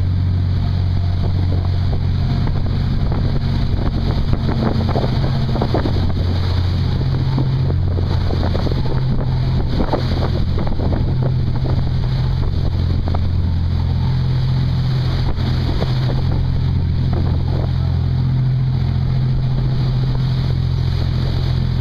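Jet boat under way at speed: the engine's steady low drone with the wake churning and splashing behind the hull, and wind on the microphone.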